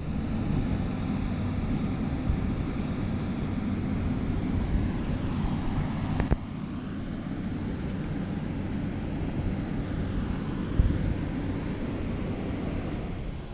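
Steady low rumble of outdoor wind noise on the microphone, with a sharp click about six seconds in and a single low thump a few seconds before the end.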